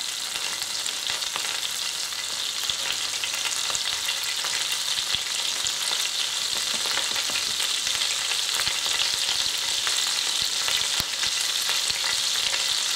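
Butter and oil sizzling in a frying pan: a steady spitting hiss with many fine crackles, growing slightly louder.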